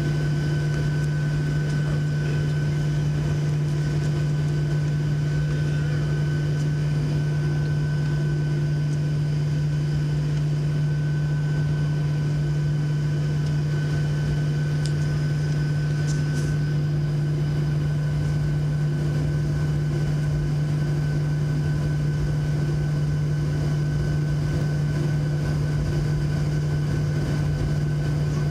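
Jet engine noise heard inside the cabin of a Boeing 737-700: a steady, loud drone from its CFM56-7B turbofans with several constant whine tones over it, holding even throughout.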